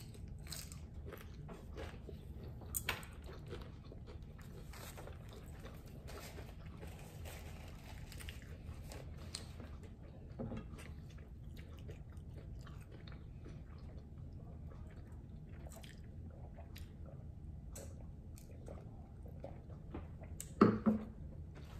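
Chewing and crunching of hard taco shells, with many crisp crunches in the first half that thin out later. A brief louder vocal sound near the end.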